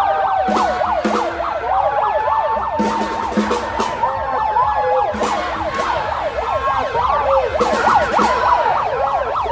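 Several electronic sirens sounding at once, some rapidly warbling up and down and one holding a slow, gradually falling tone, with scattered thumps among them.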